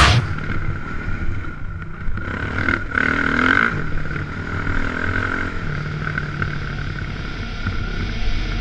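Dirt bike engine running while riding a dirt trail, heard from a camera mounted on the rider or bike. Its note is steady, briefly louder and higher about three seconds in.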